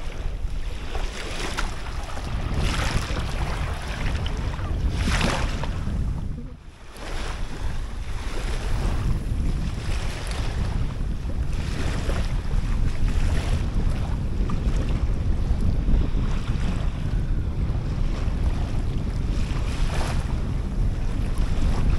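Wind buffeting the microphone with a steady low rumble, over small waves washing up onto the sand every few seconds.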